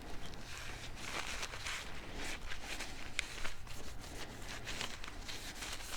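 Faint rustling and small clicks of excess bar oil being wiped off a mini chainsaw's chain and bar, with a low steady hum underneath.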